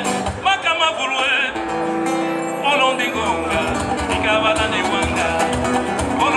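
Two acoustic guitars playing live with a man singing over them in wavering, drawn-out phrases.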